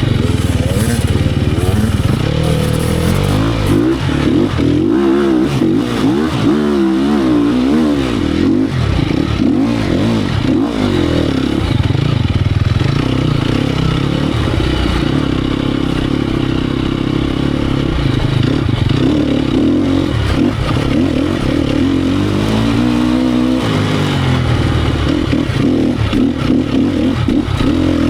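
Sherco 250 SEF Factory four-stroke single-cylinder enduro motorcycle engine being ridden off-road, its revs rising and falling again and again, with some clattering over rough ground.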